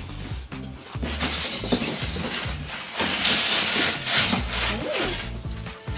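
Polystyrene foam packing pieces rubbing and scraping against each other and the cardboard box as they are lifted out, loudest from about three seconds in.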